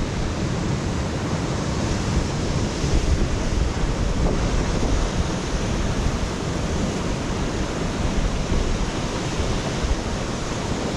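Ocean surf washing onto the shore in a steady, unbroken rush, with wind buffeting the microphone.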